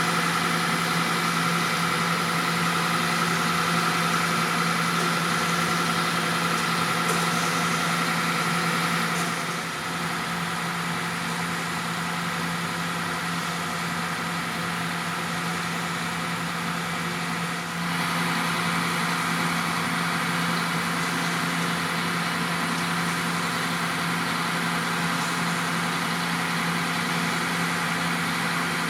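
Diesel engine of a Mercedes-Benz Actros concrete mixer truck running steadily, a constant hum that shifts slightly in level twice.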